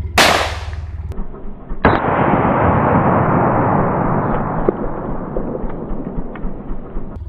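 A single pistol shot a moment in, a sharp crack that dies away within about a second. It is followed by a steady rushing noise with a few faint ticks.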